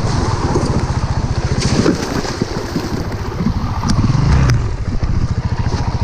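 Honda CRF450RL's single-cylinder four-stroke engine running at low revs in a creek crossing, with water splashing as the bike goes over into the creek. A few sharp knocks come about two and four seconds in.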